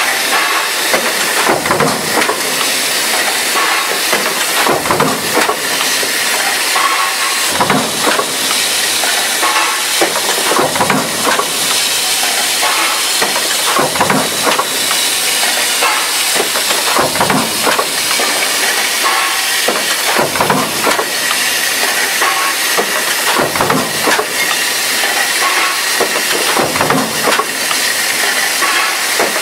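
Power press stamping line running: a steady loud hiss and clatter, with a heavy strike every one to three seconds.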